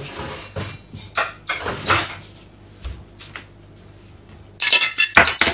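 Clattering and scraping of a stainless steel mixing bowl being handled and picked up off a stainless steel counter. There are light knocks in the first two seconds and a loud burst of scraping and clatter near the end.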